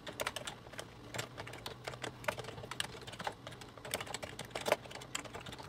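Typing on a computer keyboard: irregular clicks of keys being pressed, a few a second.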